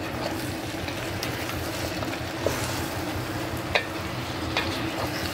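Potato, aubergine, pea and tomato pieces sizzling in hot oil in a steel pot over a high flame while being stirred with a wooden spatula. A few light knocks of the spatula against the pot come through the steady sizzle.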